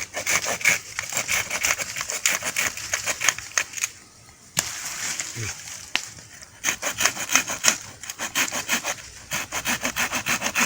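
A saw cutting wood in quick rasping strokes, in two runs with a pause and a single click between them.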